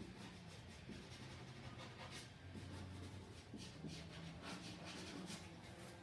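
Faint, irregular scratching of a drawing tool stroking across a large sketch surface, the short strokes of hand sketching.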